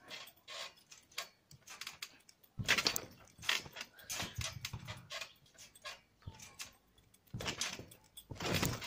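A person bouncing and flipping on a trampoline: repeated thuds on the mat with rattling of the frame and net. The landings come heavier about three seconds in and again near the end.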